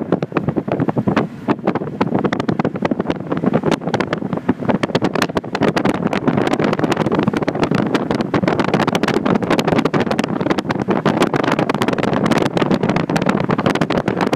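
Steady vehicle noise heard from on board a moving vehicle: engine and road noise mixed with wind buffeting the phone's microphone, full of rapid crackling.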